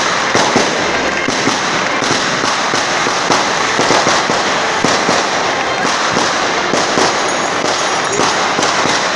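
A long string of firecrackers going off in rapid, continuous crackling, with a few louder bangs among them.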